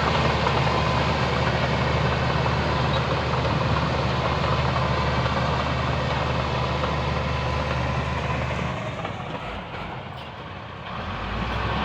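Heavy diesel engine of earthmoving equipment running steadily. Near the end it drops off and goes quieter for about two seconds, then comes back up.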